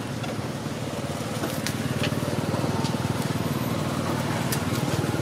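An engine running steadily, a low pulsing drone, with a few faint sharp clicks over it.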